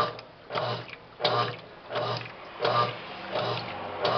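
Brastemp Clean washing machine on its final spin, making a rhythmic noise that repeats about one and a half times a second; the machine is faulty.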